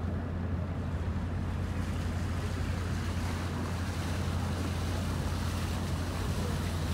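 Steady low drone of the tall ship Dar Młodzieży's engines as she motors out under bare masts, with an even wash of wind and water noise.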